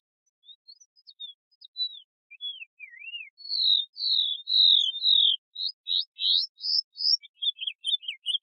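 Domestic canary singing: a few scattered quiet whistled notes, then a louder run of repeated downward-slurred notes about four a second, then a run of rising notes, and a quicker chatter of short notes near the end.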